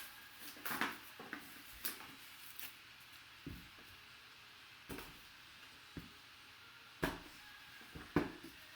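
Scattered short clicks and rustles of a sealed trading card box and its packaging being opened and handled, about ten separate knocks and crinkles with the loudest near the start and near the end.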